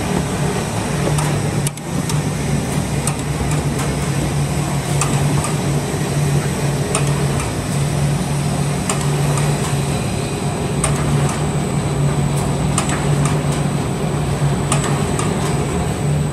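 Two-colour rotary die-cutting carton machine with a chain auto feeder running: a steady low hum that swells in a rough pulse about once a second, with scattered light ticks and clacks.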